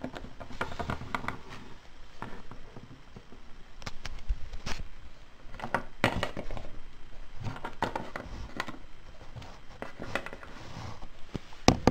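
Plastic Littlest Pet Shop toy figures being handled and moved on a wooden tabletop: scattered light taps and knocks, with rubbing and handling noise, and two sharp knocks close together near the end.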